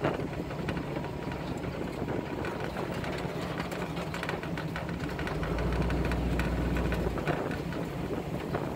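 Vehicle engine running at low speed over a rough sandy dirt track, with many small clicks and knocks over its steady hum. The engine note swells to a louder, deeper rumble for about a second and a half after five seconds in.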